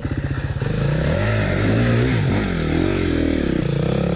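Dirt bike's single-cylinder engine, with the revs rising and falling repeatedly as the throttle is worked over rough trail.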